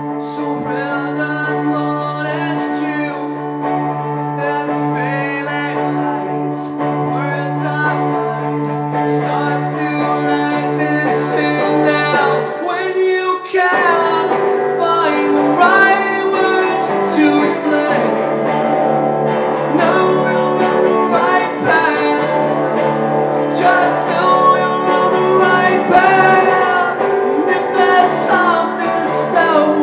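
A male voice sings a rock song over an electric guitar in a live solo performance. The guitar holds ringing chords over a low sustained note, which drops out about halfway through as the chords change, and the song builds a little louder after that.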